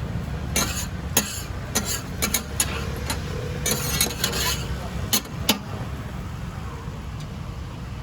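Cooking utensils at a frying stall clicking and clattering several times, with short scraping hisses, over a steady low rumble.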